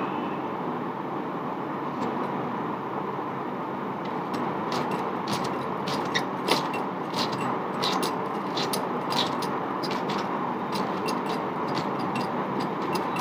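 A red onion being sliced thin against a boti's upright blade: short, crisp, irregular clicks that come more often from about four seconds in, over a steady background hiss.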